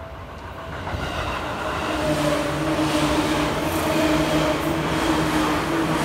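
Seibu 3000 series electric commuter train approaching and passing close by over a level crossing, with wheels running on the rails. The sound grows over the first two seconds and then holds steady, with a steady hum of several pitches from the train's running gear.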